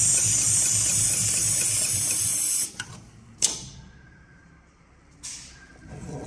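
HighTex 71008R automatic climbing-rope sewing machine stitching, a fast even needle beat under a loud steady hiss, stopping suddenly about two and a half seconds in as the stitch cycle ends. Then two short, sharp bursts of air hiss from the machine's pneumatics about two seconds apart, and a low clunk near the end.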